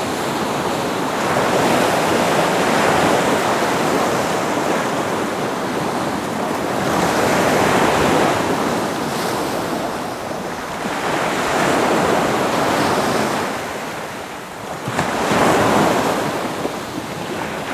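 Ocean surf: waves breaking and washing up in a steady roar of water that swells and eases every few seconds, with a sharper surge a little past two-thirds of the way through.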